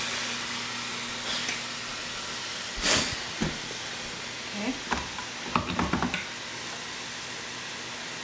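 Chicken pieces sizzling steadily in hot oil in a pot, with a sharp knock about three seconds in and a run of clatters around five to six seconds as the blender jar is handled and set down on its base.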